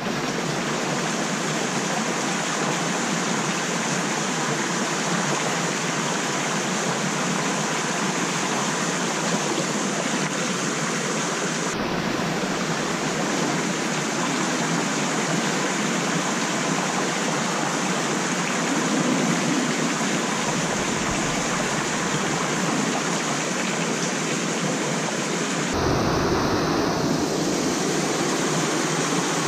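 Water of a small stream rushing steadily. A low rumble joins in about twelve seconds in, and again for the last few seconds.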